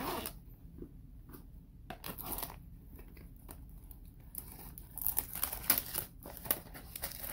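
Plastic shrink wrap being picked at, torn and peeled off a cardboard trading-card box, crinkling. It starts as scattered rustles, then gets denser and sharper in the second half.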